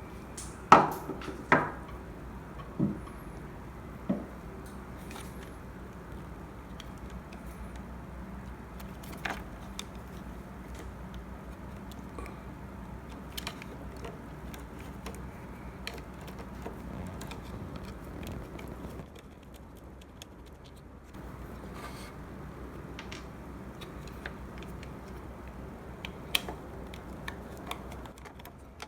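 Hand-tool and parts-handling noise while an espresso machine's pump fittings are undone: a few sharp metal clicks and knocks in the first four seconds, then scattered faint ticks over a steady low hum.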